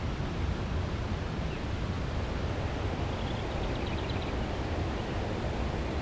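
Steady outdoor noise of wind rumbling on the microphone over the wash of river water. About three seconds in comes a faint, brief run of rapid, evenly spaced high ticks.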